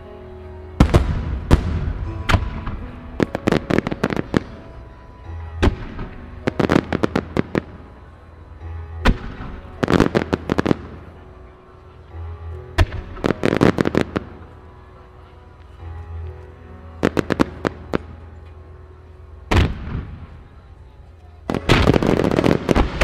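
Aerial firework shells bursting in quick clusters of sharp bangs every couple of seconds, a starmine barrage, over steady background music. A denser run of bursts starts near the end.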